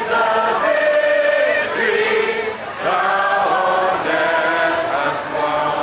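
A large crowd singing a hymn together, holding long notes, with a short break between lines a little under three seconds in.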